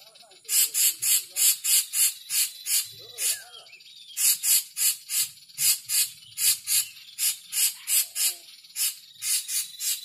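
Rapid, regular chattering of short, high-pitched notes, about four a second with a couple of brief breaks: the noisy 'crecetan' chatter call used as a lure to draw birds in. Fainter bird whistles sound beneath it now and then.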